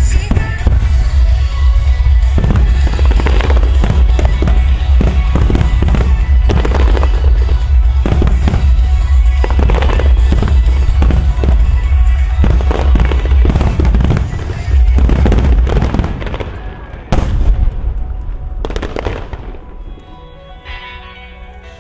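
Rapid barrage of aerial firework shells bursting, many overlapping booms and crackles, over loud music with heavy bass from the show's sound system. After about 16 seconds the barrage thins to a few scattered bursts and it all grows much quieter.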